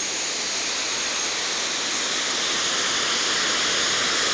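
BD-5J micro jet's small Microturbo TRS-18 turbojet running while it taxis: a steady hissing rush with a thin high whine that fades about a second and a half in.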